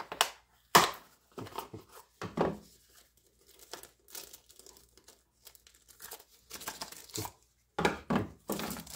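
Plastic packaging crinkling and tearing by hand as a small plastic-wrapped sling enclosure is unwrapped, in irregular bursts with short pauses, loudest about a second in and near the end.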